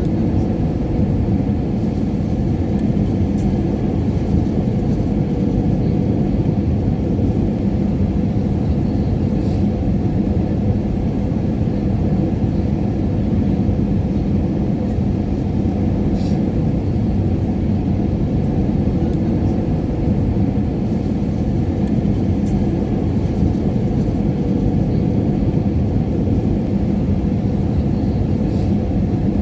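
Airliner cabin noise in cruise: a steady low rumble of engines and rushing air, with a faint even hum running through it.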